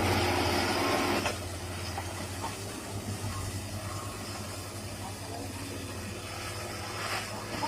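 Excavator's diesel engine running steadily with a low hum. A loud rushing noise covers the first second or so, then cuts off.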